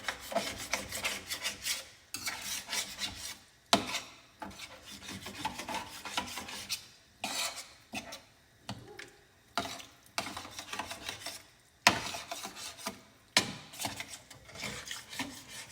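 A utensil scraping and stirring across the bottom of a pan of thick sauce in short, irregular strokes, loosening bits stuck to the pan, with a few sharp knocks against the pan about four seconds in and near twelve and thirteen seconds.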